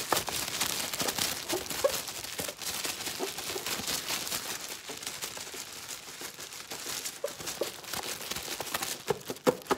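Clear plastic wrapping crinkling and crackling as hands crumple and pull it off a boxed tin, held close to the microphone as ASMR: a dense, continuous crackle of small clicks.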